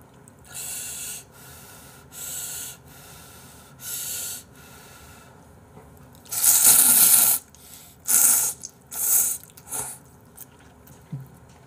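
Three short puffs of breath blowing on a chopstick-held clump of hot ramen noodles. About six seconds in comes a long, loud slurp of the noodles, followed by three shorter slurps.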